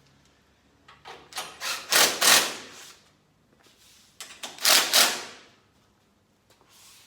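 Hand metalwork on a steel flat bar: two loud, harsh noisy bursts, each one to two seconds long and made of several quick swells, the second starting about four seconds in.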